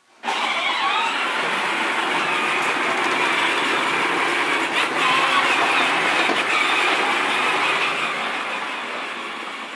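Battery-powered Peg Perego John Deere Ground Force ride-on toy tractor driving on a bare concrete floor: its electric drive motors and gearbox whirring and its hard plastic wheels rolling and rattling. The sound starts suddenly and fades near the end as the tractor moves away.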